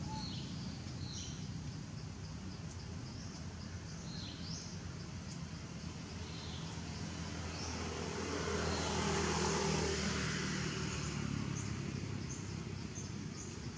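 Steady low engine hum from motor traffic, swelling in a broad wash of noise about eight to eleven seconds in as a vehicle passes, with short high bird chirps near the start and end.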